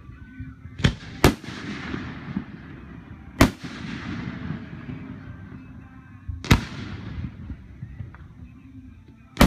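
Aerial firework shells bursting: five sharp booms, two close together about a second in, then one every two to three seconds, each trailing off in a rolling echo.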